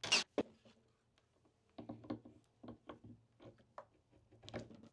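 Hand work on a metal skateboard truck: a loud clack right at the start, then irregular light clicks and knocks of metal parts and a socket tool being handled, about two or three a second.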